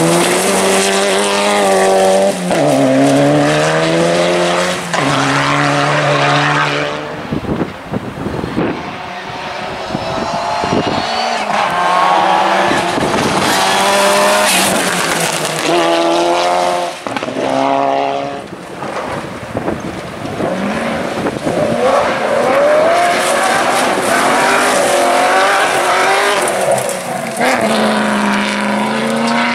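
Rally car engines revving hard, pitch climbing and then stepping down at each gear change, again and again, over a rush of tyre noise.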